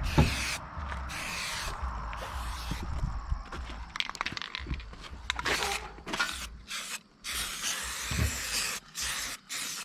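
Aerosol spray can of clear coat hissing in a series of sprays, each cut off abruptly, over a low rumble of wind on the microphone.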